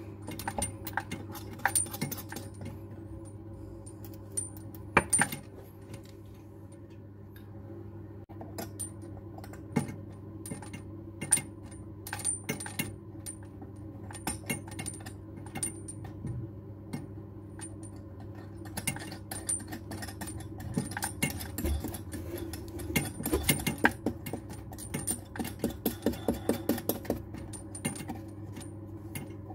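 Small metal tap fittings clinking and knocking as a basin mixer tap is fitted from underneath: the braided steel flexible hoses and threaded fixing stud are handled against the tap body. There are irregular clicks throughout and a quick run of regular ticks over the last few seconds.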